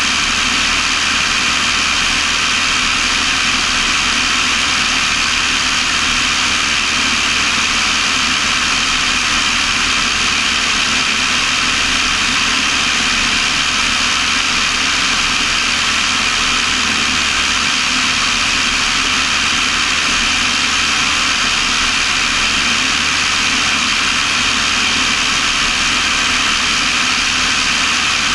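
Cessna 172's piston engine and propeller droning steadily in cruise, with rushing airflow noise, even and unchanging throughout.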